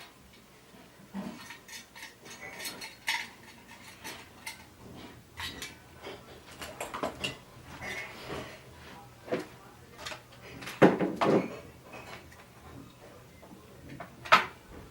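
Irregular clicks, knocks and light clatter of tools and parts being handled on a workbench, with the loudest knocks about eleven seconds in and near the end.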